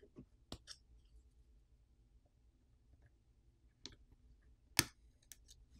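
A few faint, sharp clicks and taps from a plastic pry pick working at tape and parts inside an opened smartphone; the loudest click comes near the end.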